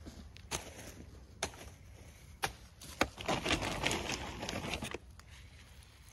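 A long-handled garden hoe chopping into soil to dig a planting hole: four sharp strikes about a second apart, followed by a stretch of rustling and scraping around the middle.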